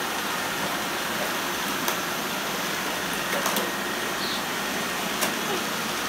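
Many robot vacuum cleaners running together on a bare concrete floor, a steady whirring hiss of motors and brushes. A few sharp clicks and knocks come through it, about two seconds in and again near three and a half and five seconds.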